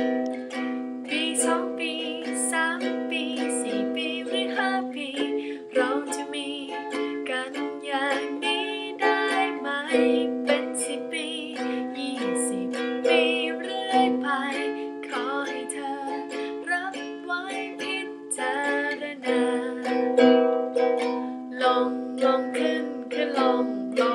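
Ukulele strummed in a steady rhythm, moving between C major 7 and D minor chords, with the chord changing about five seconds in and again near nineteen seconds.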